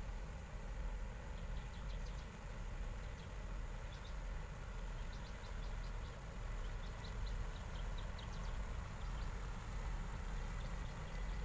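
Low, steady drone of a passing tanker ship's engine, with short high bird chirps over it, many of them from about a second and a half in.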